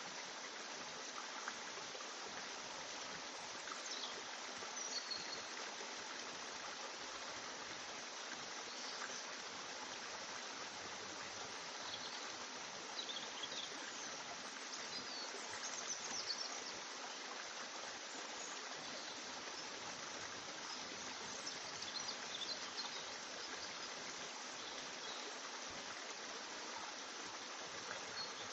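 A steady, even hiss like running water, with a few faint, short high scratchy sounds now and then.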